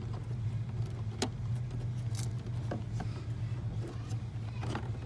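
Scattered light clicks and knocks of a plastic tail light assembly and its wiring plug being handled and fitted, over a steady low hum.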